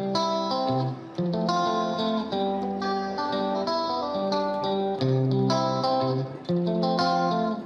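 Background music: a plucked guitar playing a melody over chords.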